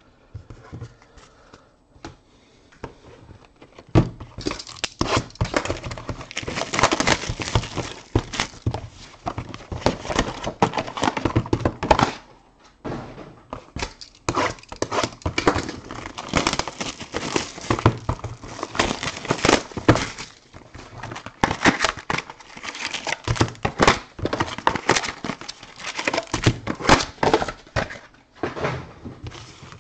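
A sealed box of Topps Champions League Showcase trading cards being opened by hand: wrapping and cardboard rustling and crackling with many knocks as the packs are taken out and laid on the table. It starts about four seconds in and eases briefly about halfway through.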